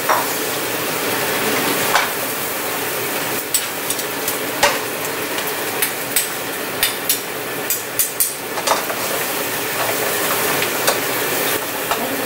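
King crab legs sizzling in garlic butter in a frying pan, with a steady frying hiss. From a few seconds in, a metal ladle clicks and scrapes repeatedly against the pan as the legs are stirred.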